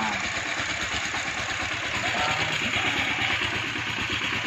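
An engine idling steadily, with faint voices in the background about two seconds in.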